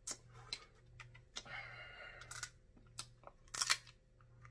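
Close-miked eating of crab legs: scattered sharp clicks and cracks of crab shell, with a short stretch of sucking at the meat and a louder cluster of cracks near the end.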